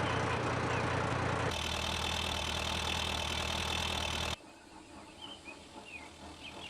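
A vehicle engine running steadily, its tone changing about a second and a half in, then cut off suddenly about two-thirds of the way through, leaving a quiet background with a few faint short chirps.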